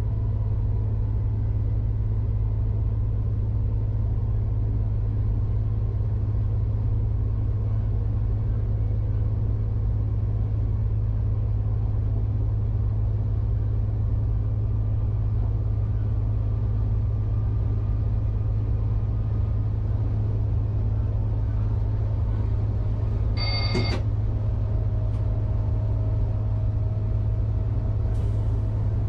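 Steady low rumble of an SNCF AGC (B82500) railcar, heard from inside the driver's cab as it picks up speed along the line. A brief high electronic tone sounds once, near the end.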